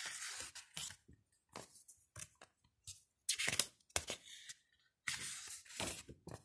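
Pages of a small glossy photo book being turned and handled: paper swishing and rustling in several short bursts, the loudest a little past halfway.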